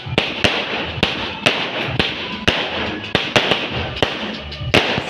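A 49-shot consumer fireworks cake firing in quick succession, about two sharp shots a second, each breaking into crackling stars, so the booms sit over a continuous crackle.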